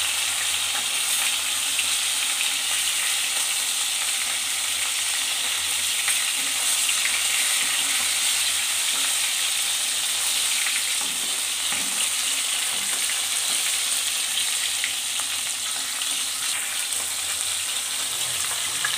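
Katla fish pieces sizzling steadily as they shallow-fry in hot oil in a kadai, with a spatula now and then scraping the pan as it turns them.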